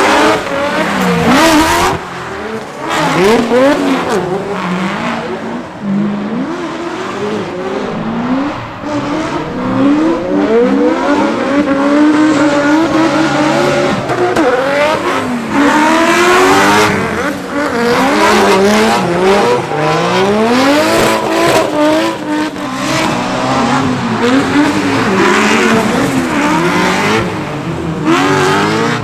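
BMW with an E92 M3's 4.0-litre V8 engine, revving up and falling back again and again as the car is held in a wet drift, with tyre squeal.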